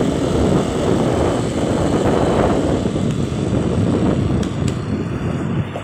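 Steady rush of wind buffeting the microphone on a moving motor scooter, mixed with the scooter's engine and tyre noise.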